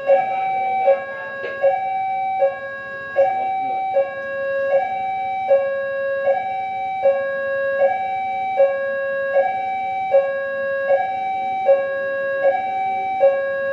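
Railway level-crossing warning alarm sounding with the barrier down, the signal that a train is approaching: an electronic two-tone signal, a high and a low tone alternating steadily, a little more than one cycle a second.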